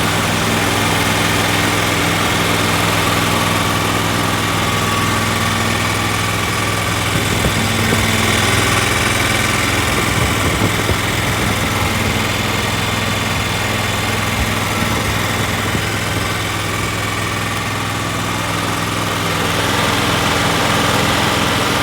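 Kohler Command 20 air-cooled V-twin engine running steadily, a motor in good running order.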